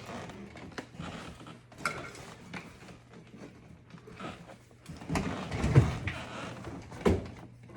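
Handling noises of dishwasher panel work: scattered clicks, knocks and rubbing of parts, with a louder low thump about six seconds in and a sharp knock about a second later.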